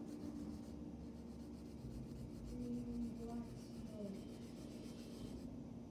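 Marker tip rubbing back and forth on paper, colouring in a drawing.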